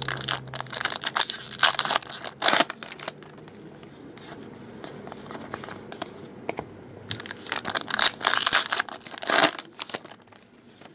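Foil trading-card pack wrapper crinkling and tearing open, in two spells: one over the first few seconds, and another after a quieter lull about seven seconds in.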